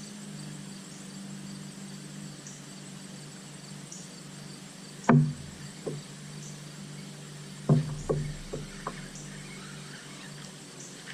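Sharp knocks on a kayak: two loud ones, about five and eight seconds in, each followed by a few lighter taps, over a steady low hum.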